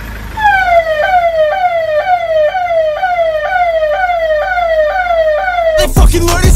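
Electronic siren in a fast yelp: a tone falling in pitch and jumping back up about twice a second. It cuts off near the end as loud rap music starts.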